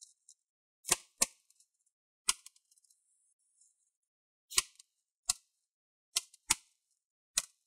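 Plastic rivet heads holding a laptop keyboard to its palm rest snapping off one after another as the old keyboard is pulled upward: about eight sharp cracks at irregular intervals, some in close pairs.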